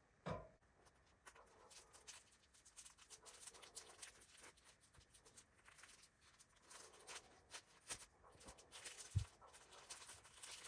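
Faint rustling and scattered small clicks of fiberglass insulation being handled and wrapped around a stainless steel chimney pipe. There is a brief knock right at the start and a low thud near the end.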